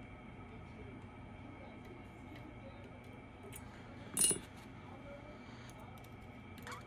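Faint metallic ticks and scrapes of a lock pick and tension wrench working the pins of a BKS Janus 13-pin lock, with one louder metal clink about four seconds in.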